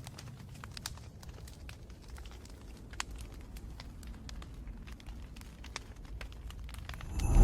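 Wood fire crackling, with frequent sharp pops over a low steady rumble. Just before the end a much louder rumble swells up suddenly.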